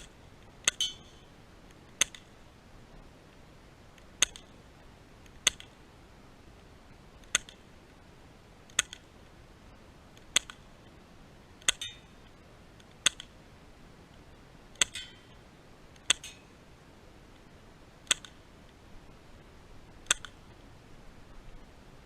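CO2-powered airsoft pistol firing single shots: about a dozen sharp cracks, one every one to two seconds, a few followed by a short rattle.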